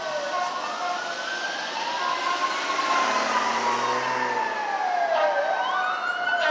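Sirens of LAFD Engine 7 and Rescue 7 wailing, several overlapping tones rising and falling in pitch, growing louder as the fire apparatus approach through traffic.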